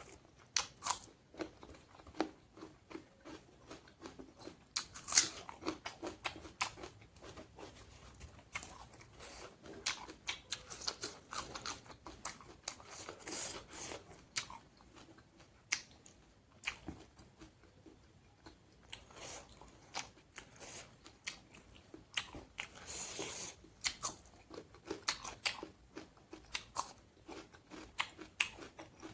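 Close-up eating sounds: wet chewing and crunching, with irregular clicks and smacks and one sharper crunch about five seconds in.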